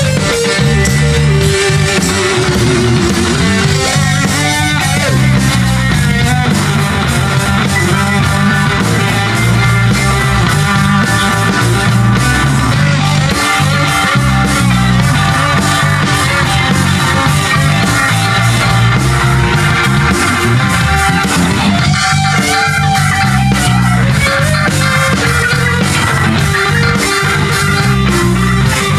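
Live rock band playing loudly: electric guitars over bass and a drum kit.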